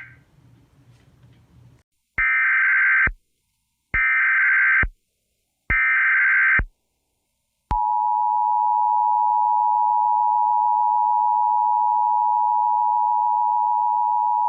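Emergency Alert System tones: three buzzy data bursts of about a second each, the SAME digital header, sent about two seconds apart. About eight seconds in, the steady two-tone EAS attention signal starts and holds.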